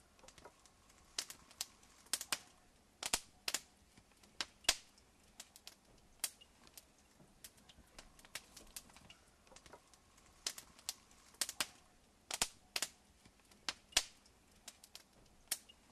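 Faint, irregular sharp clicks and pops, some in quick pairs, roughly two a second, over a quiet hush.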